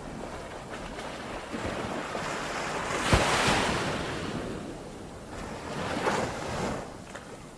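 Ocean waves breaking and washing on the shore, one wave cresting about three seconds in and a smaller one about six seconds in, with wind on the microphone.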